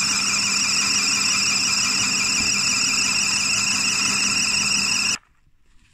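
Metal lathe turning down a steel socket tool, with a steady high-pitched squeal from the cut over the low hum of the machine. It cuts off suddenly about five seconds in.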